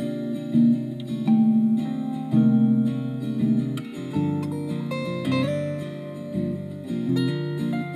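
Background music: an instrumental piece of plucked acoustic guitar, note after note.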